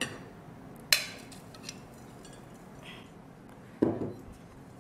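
A glass bowl and a perforated stainless-steel sieve knocking together: one sharp clink about a second in and a duller knock near the end, with faint ticks and a soft rustle of crumbled flour tipped into the sieve in between.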